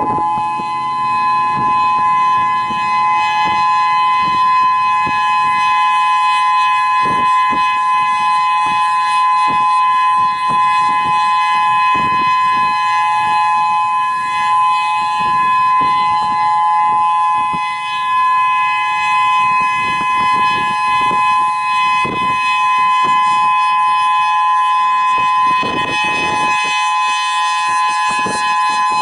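EOWS 3000 outdoor warning siren holding a steady two-tone chord at full pitch, the steady alert signal, with uneven background noise underneath.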